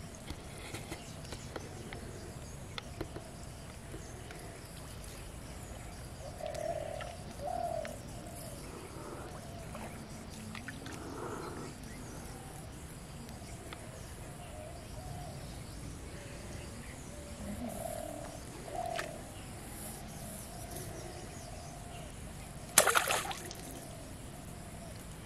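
A dove cooing, two short phrases of low coos about ten seconds apart, over steady low outdoor background noise. Near the end, one short, loud crackle.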